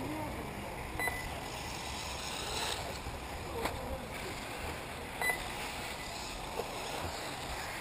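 Steady outdoor noise with a few faint clicks and two short, high beeps, about a second in and about five seconds in.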